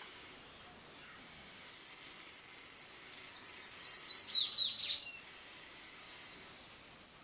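Buff-necked ibis chicks begging for food: a rapid run of high-pitched, overlapping squeaky calls that glide up and down, starting about two seconds in and lasting about three seconds, over a faint steady hiss.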